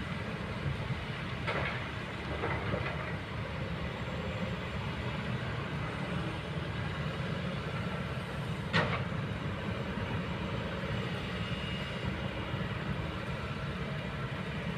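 Kobelco excavator's diesel engine running steadily, with a few short metallic knocks, the sharpest a little past halfway.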